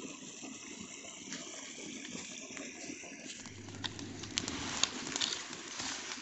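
A steady outdoor hiss, then from about halfway in, irregular sharp crackles and snaps of a small twig fire being stoked with a stick among dry sticks and grass.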